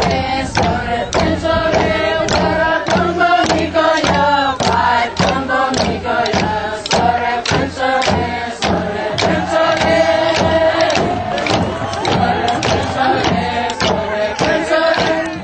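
A group of voices singing a chant together over a steady beat of about three strikes a second.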